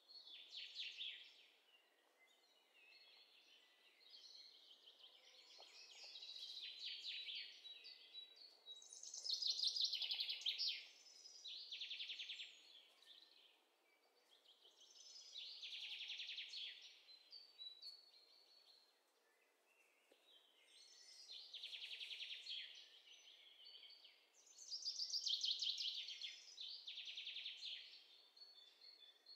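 Songbird singing: bursts of rapid, high trills, each a second or two long, repeating every few seconds.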